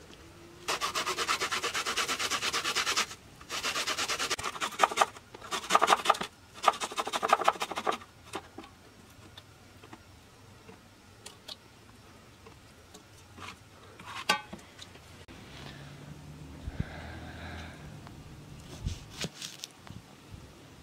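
Garlic cloves being grated on a metal box grater: fast scraping strokes in about four spells over the first eight seconds. After that, only a few light taps and knocks.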